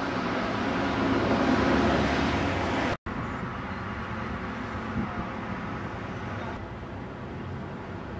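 Steady outdoor street noise with road traffic. It drops out for an instant about three seconds in, then carries on a little quieter with a faint thin high whine.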